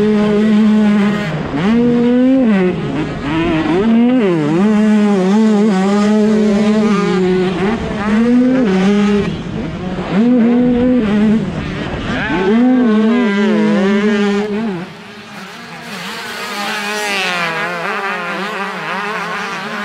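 125cc two-stroke motocross bike engine at race pace, heard close up from the bike itself: it revs up hard and then drops in pitch at each gear change or throttle roll-off, again and again. About 15 seconds in the sound becomes quieter and higher, the whine of two-stroke bikes accelerating, heard from the side of the track.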